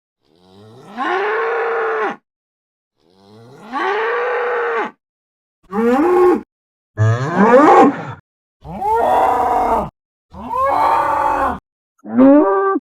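Sound effect of a cartoon combine-harvester bull bellowing: seven separate moo-like calls, each cut off into dead silence. The first two are long and swoop up in pitch at their start; the five after them are shorter.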